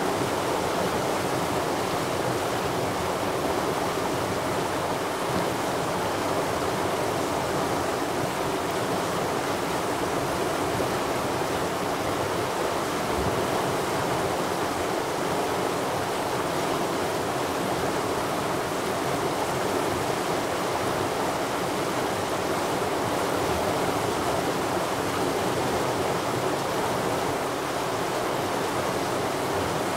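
Mountain stream rushing steadily, an even, unbroken wash of water noise.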